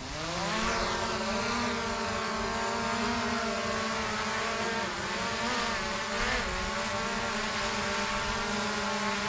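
DJI Air 2S quadcopter's four propellers spinning up with a rising pitch over the first second as it lifts off. It then hovers with a steady buzz of several tones.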